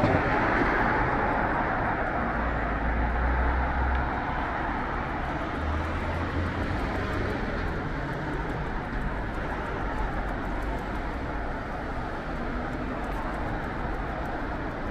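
City street traffic: passing cars make a steady wash of tyre and engine noise, loudest in the first few seconds. A low engine rumble from a passing vehicle comes twice in the first half.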